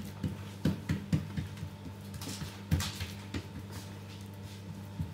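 Hands pressing and smoothing a greasy sheet of dough flat on a worktop, giving soft, irregular taps and pats, over a steady low hum.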